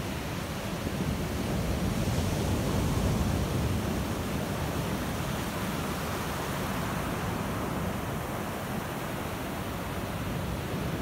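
Ocean surf breaking and washing up a beach: a steady rushing that swells a little about two seconds in, then settles.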